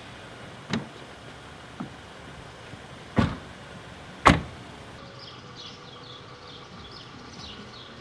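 Four separate thumps over the first half, the last two the loudest. About five seconds in, the background changes abruptly to repeated high, quick chirps.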